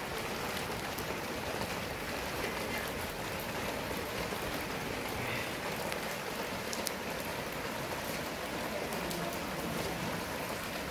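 Steady heavy rain falling on open concrete, with a few faint knocks of a cleaver chopping coriander on a wooden block.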